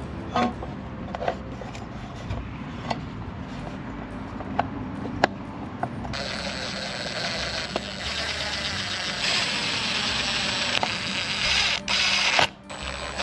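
Clicks and knocks of a plastic winch control box and its cables being handled onto a steel bumper. About halfway through, a cordless impact driver starts running for about six seconds, growing harsher partway and cutting off sharply near the end.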